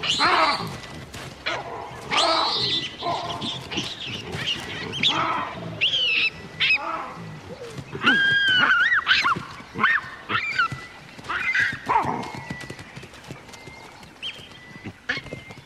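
Baboons screaming during a fight: a run of high, wavering shrieks, loudest just at the start and again about eight seconds in.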